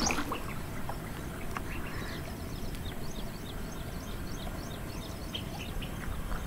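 Small birds chirping in short, scattered calls over a low, steady background rumble.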